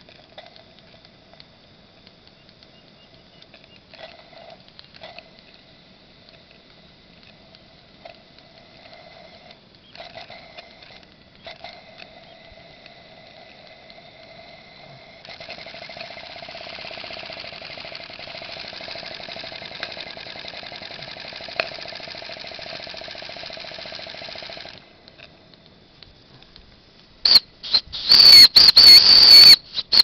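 A 1/16-scale Regner live-steam Fowler ploughing engine running with a faint steady hiss and high whine, growing louder and steady for about ten seconds midway. Near the end come several short, very loud, shrill high-pitched blasts.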